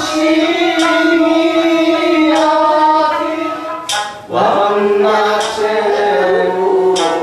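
A group of voices singing a slow Okinawan song together in long, held notes, with a brief break about four seconds in before the singing picks up again.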